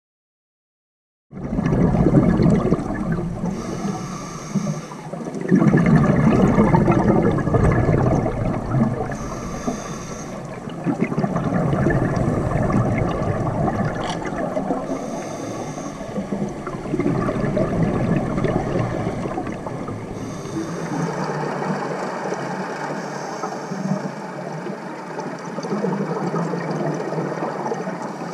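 A scuba diver breathing through a regulator, heard underwater through a camera housing. A short hiss of inhaled air comes about every five to six seconds, each followed by the rumbling gurgle of exhaled bubbles. It starts about a second in.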